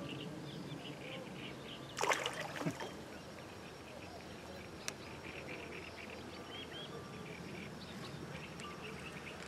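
A short rush of water splashing about two seconds in, with a second surge just after, over a steady background of rapid high chirping. A single sharp click follows a couple of seconds later.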